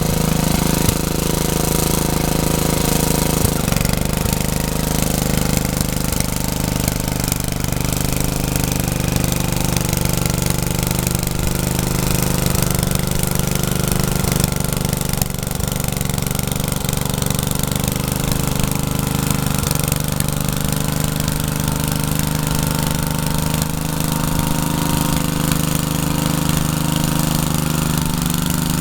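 Rebuilt Troy-Bilt rotary tiller's small engine running steadily under way, its pitch shifting slightly about four seconds in and again about twenty seconds in.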